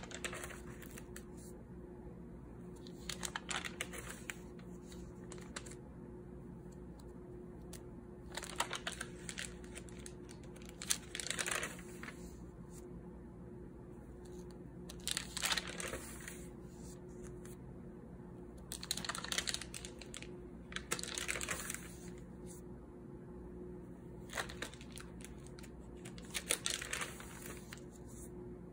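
Paper pages of a spiral-bound notebook being turned by hand: a short rustle every few seconds, about eight in all.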